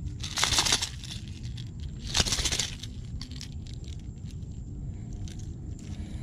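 Two short rattling, crunching bursts about a second and a half apart as a small snook is unhooked by hand from a hard plastic minnow lure, followed by a few faint clicks.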